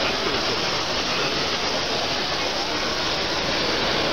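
Steady crowd noise in a large exhibition hall: many voices blurring into an even hubbub.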